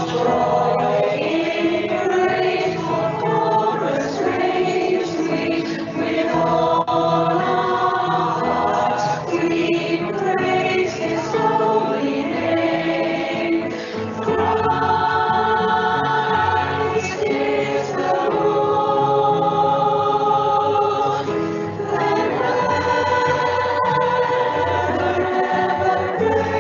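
A choir singing in parts, with long held chords that change every second or two.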